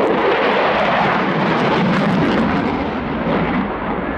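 Display aircraft engine noise: a loud, steady rushing sound that eases slightly near the end.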